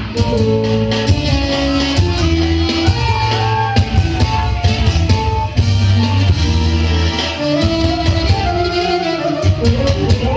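Loud dance music for a hand-in-hand chain dance (horo): a steady beat over heavy bass, with a lead melody of held notes that slide up and down in pitch.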